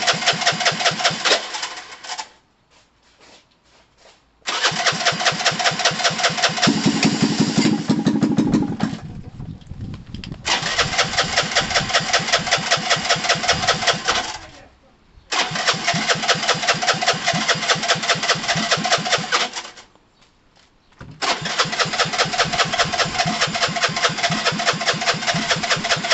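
Gilera DNA 125 motorcycle engine being cranked on its electric starter in five tries of a few seconds each, a fast even chugging of several pulses a second, without catching. The bike is low on fuel.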